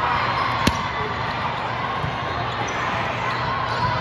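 A volleyball served overhand, the hand smacking the ball once, sharply, under a second in, over the steady din of a busy hall with many volleyball games going on.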